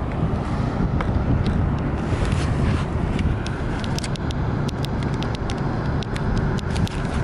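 Low, steady engine rumble of a workboat passing close by on the water, with scattered sharp clicks in the second half.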